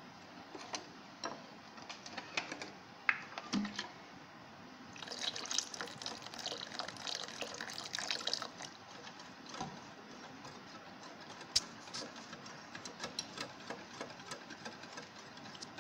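Wire whisk beating a thin yogurt and gram-flour batter in a glass bowl as water is mixed in, with light clicks of the wires against the glass. The wet stirring grows busier for a few seconds about five seconds in.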